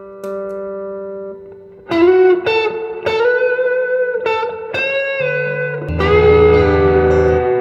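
Fender Stratocaster with Klein Jazzy Cat pickups played through a '68 Custom Princeton Reverb amp with a touch of spring reverb. A held note dies away, then a quick run of single picked notes with a bend starts about two seconds in, and near the end a full chord rings out.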